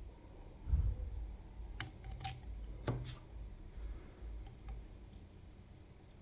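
Small sharp clicks and taps from a CISA AP3 lock and lockpicking tools being handled, a few close together about two to three seconds in and fainter ones later, after a dull thump about a second in.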